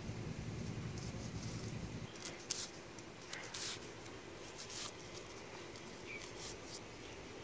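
Light, scratchy rustles and small scrapes as the papery skin of a red onion is peeled off by hand against a curved iron blade, coming irregularly several times. A low rumble stops about two seconds in.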